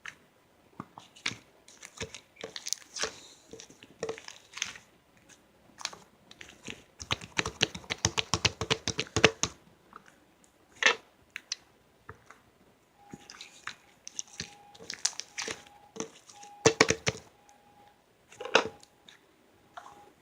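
Irregular crinkling, crunching and clicking handling noises, densest about seven to nine seconds in. From about thirteen seconds a faint steady tone comes and goes in short dashes.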